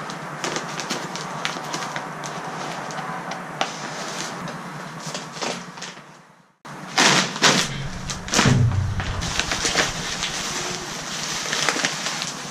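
Plastic wrap and bubble wrap crinkling and rustling as they are torn and pulled off by hand. The sound cuts out briefly about six and a half seconds in and comes back louder.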